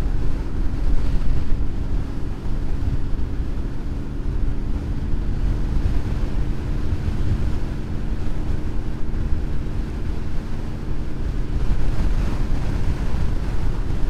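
Heavy wind buffeting on the microphone of a motorcycle riding in high winds, a dense steady rumble, with the steady hum of the Honda VFR's V4 engine faintly underneath; the engine tone drops away near the end.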